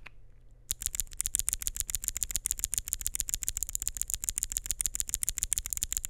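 A single loose Gateron G Pro 2.0 Brown tactile switch pressed rapidly over and over between the fingers, giving a fast, even run of sharp clicks, about ten a second. The clicks start just under a second in and stop just before the end.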